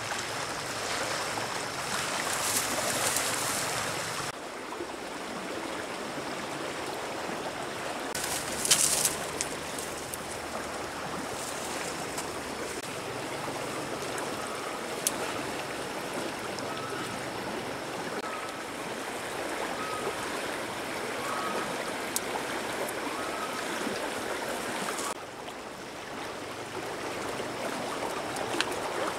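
Steady rushing of a shallow river flowing over stones, with a brief louder burst of noise about nine seconds in and a few faint short chirps in the middle.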